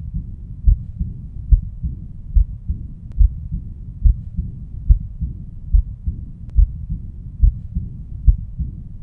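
Heartbeat of a patient with aortic regurgitation, heard through a stethoscope at the left lower sternal border: a regular beat of about 70 a minute. After each beat comes a blowing, decrescendo murmur in diastole, the sign of blood leaking back through the aortic valve.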